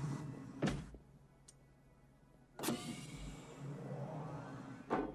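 Three sharp mechanical clunks about two seconds apart, each with a low thud, and a motorised whir rising in pitch before the last one.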